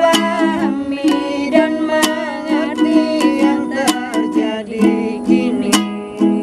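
A man and a woman singing a duet, accompanied by a strummed ukulele.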